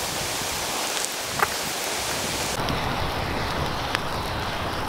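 Wood campfire of logs and dry twigs burning: a steady rushing hiss of flames with a few sharp pops from the burning wood.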